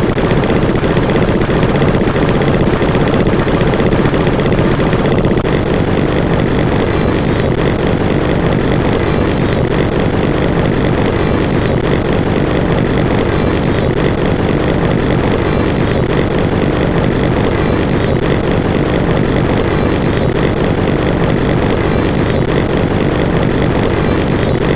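Loud, steady droning noise, strongest in the low range and unchanging throughout. From about seven seconds in, faint high chirps repeat roughly every two seconds.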